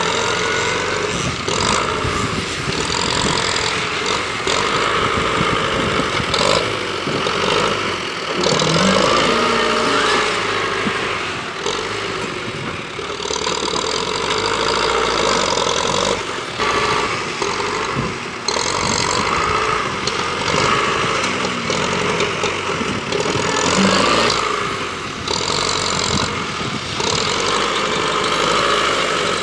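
Belarus 510 tractor's diesel engine running, revving up and down repeatedly as it drives the front loader to scoop and lift a bucket of soil.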